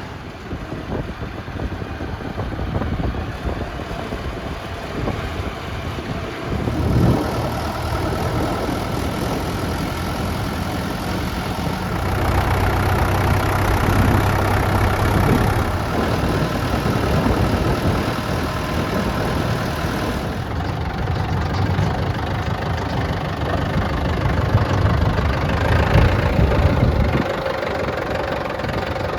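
Diesel engine of earthmoving machinery running steadily. It works harder and louder for a few seconds about twelve seconds in, and again near the end.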